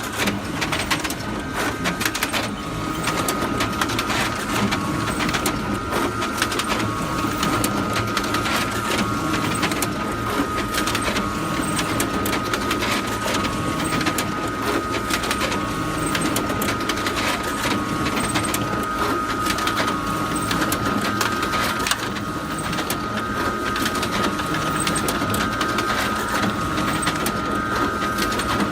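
Photocopier running continuously: a steady mechanical whir with a constant high hum and rapid, irregular clicking.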